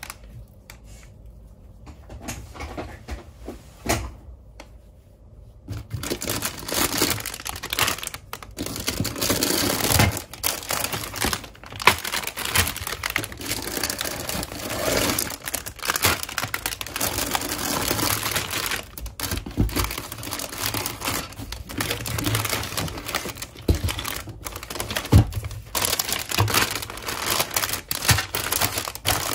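Clear plastic bags of toy track parts crinkling and rustling as they are handled and pulled from a cardboard box, with many small clicks and knocks. Quieter for the first few seconds, then busy and continuous.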